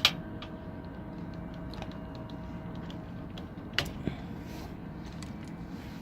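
A few light clicks and taps, the sharpest right at the start and a pair about four seconds in, over a steady background hum.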